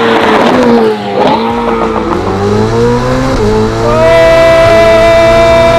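Ferrari 488 Pista's twin-turbo V8 through a Novitec sport exhaust, heard from inside the cabin under hard acceleration. The engine note climbs, drops sharply at a gear change about three and a half seconds in, then climbs again to a loud steady note.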